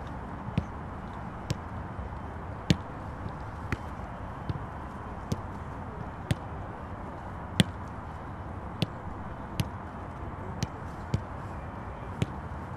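Footballs being kicked and juggled: sharp, irregular thuds of boots and knees striking the ball, roughly one a second, some louder than others, over steady background noise.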